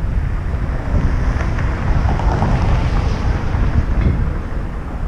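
Wind buffeting the microphone of a helmet-mounted action camera on a moving bicycle: a steady, loud low rumble, with street traffic noise that swells in the middle.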